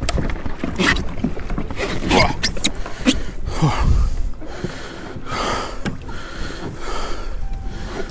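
Water splashing against a plastic sit-on-top fishing kayak, with irregular knocks and clatter of gear on the hull.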